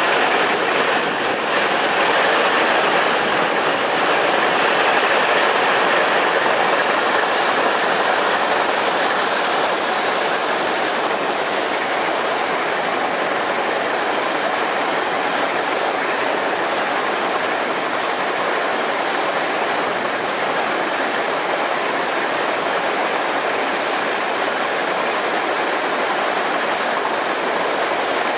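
Plasser & Theurer ballast cleaning machine at work: engines and excavating chain running while crushed-stone ballast pours along its conveyors, a steady, dense rushing rattle, a little louder in the first third.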